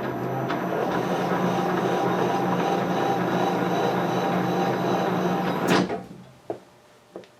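Metal lathe running with the half nut engaged, taking a spring pass on a lead screw thread with a steady machine hum. It stops abruptly about six seconds in with a sharp clack, followed by a few light clicks.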